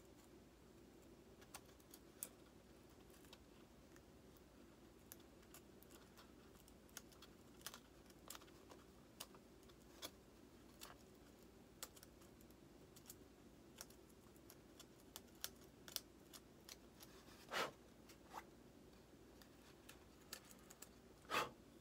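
Faint, irregular small clicks and scratches of a craft knife cutting and picking at the EPO foam of a model jet's tail fin, with two somewhat louder clicks in the last few seconds.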